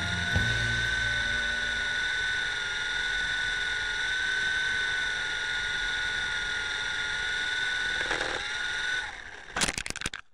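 Honey Bee FP micro RC helicopter's electric motor and rotor, heard from its onboard camera, whining steadily in flight. About nine seconds in the whine winds down as the throttle is cut, and a quick clatter of impacts follows as the helicopter crashes, out of control after its swashplate separated.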